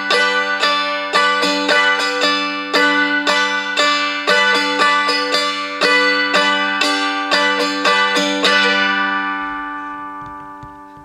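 Seagull M4 Spruce dulcimer tuned G-D-G, strummed in three-four waltz time: a tap on the thick G string on the one, then down-strums on two and three, over steady droning strings. The strumming stops near the end and the last chord rings out and fades.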